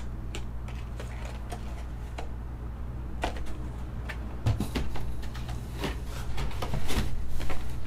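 Scattered light clicks and knocks over a steady low hum, with a few stronger knocks in the second half.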